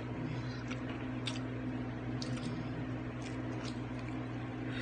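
Faint squishy eating sounds and a few soft clicks from someone chewing balut, over a steady low hum.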